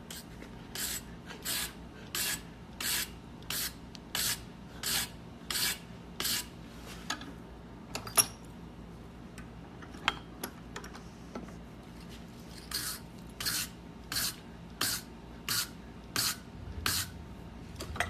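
Hand wire brush scrubbed back and forth over a freshly cut key clamped in a bench vise, brushing off the cutting burrs. About ten even scratchy strokes, a little over one a second, then a pause with a few light clicks, then another run of about eight strokes.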